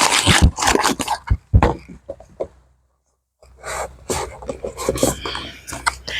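Packaging being handled and gathered up: irregular rustling and crinkling with a few light knocks, cut off by a short dead silence around the middle before the rustling resumes.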